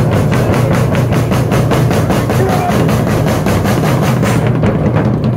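Music with a fast, steady drum beat; the crisp high beat drops out near the end.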